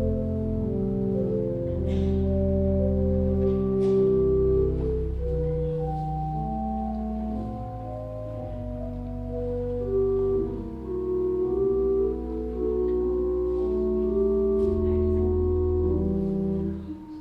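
Organ playing slow, sustained chords over long, deep bass notes, the chords changing every second or two.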